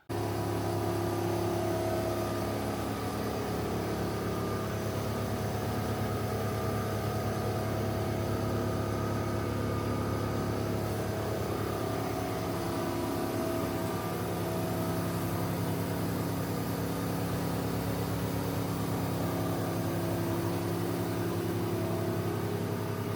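Mercedes C300's 3.0-litre V6 engine running steadily at idle, an even, unchanging hum.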